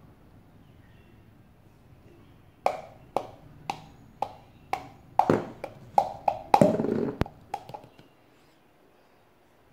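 Plastic measuring cup being tapped over a ceramic bowl to knock the last thick clear glue out: a run of sharp knocks, about two a second, closer together and loudest for the last few before they stop.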